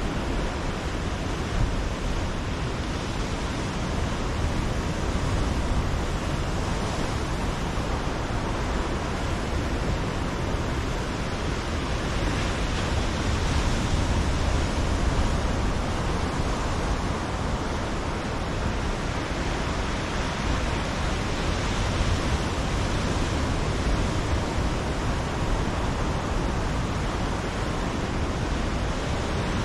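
Ocean surf breaking on a black-rock shoreline: a steady rushing wash of waves, swelling a little about halfway through as a larger wave breaks.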